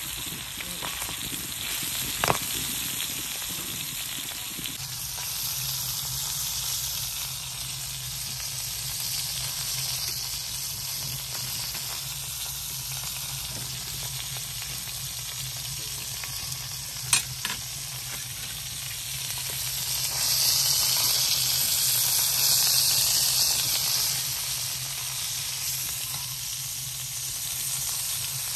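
Pieces of liver sizzling in hot ghee on a flat iron tawa, the water in the liver cooking off. The sizzle swells louder for a few seconds about two-thirds through, and two sharp clicks stand out, one about two seconds in and one just past halfway.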